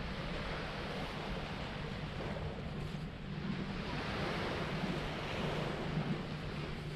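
Small waves breaking and washing up a sandy beach in a steady wash of surf noise, with wind rumbling on the microphone.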